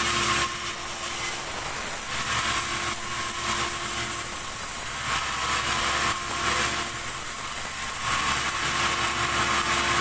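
Sawmill band saw running and cutting into a log of keranji, a very hard wood, with a steady high hiss and whine that gets louder and softer every couple of seconds.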